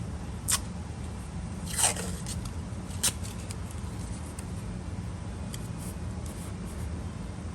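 Three short, sharp crunching clicks from hand work on small trim parts, about a second and a quarter apart, over a steady low hum.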